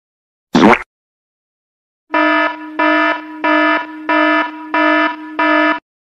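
Alarm sound effect: a buzzing tone repeating six times in a steady rhythm, about one and a half per second. About half a second in there is a brief downward sweep before it.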